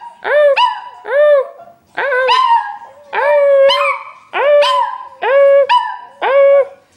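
Small white dog howling in a series of short, arching yowls, roughly one a second, a few held longer.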